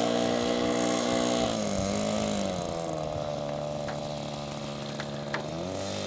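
RC model airplane engine running. Its pitch drops about two seconds in, holds lower for a few seconds, then rises again near the end.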